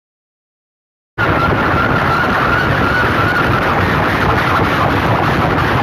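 A stack of PA horn loudspeakers blasting at competition volume, so loud the recording is a distorted, overloaded roar. It cuts in suddenly about a second in, with a wavering high tone over the noise for the first couple of seconds.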